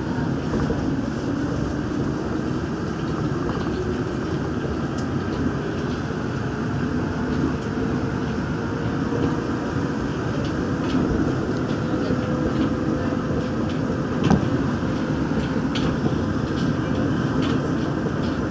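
Daegu Metro Line 3 straddle-type monorail car running between stations, heard from inside: a steady rumble of its rubber tyres on the guideway beam with a faint steady motor whine. One sharp knock stands out about fourteen seconds in.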